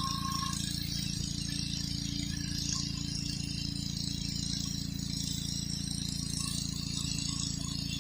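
Gas-engine pressure washer running steadily, with the hiss of its high-pressure water spray.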